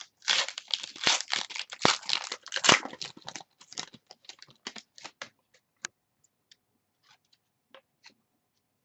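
Trading card pack wrapper being torn open and crinkled by hand: a dense crackling for the first few seconds, thinning to scattered small crinkles and then stopping about six seconds in.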